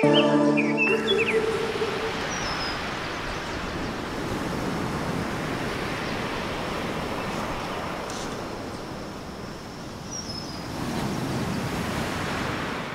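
Music stops about a second in, leaving an outdoor ambience of steady rushing noise. A couple of short, high bird chirps sound over it, and the rushing swells a little near the end.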